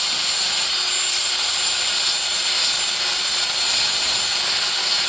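Rotary power tool running steadily, scouring rust and gunk off the wheel hub mounting surface, with a high steady whine over a hiss.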